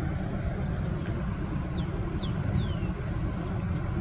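Several short, quickly falling bird chirps in the second half, over a steady low rumble.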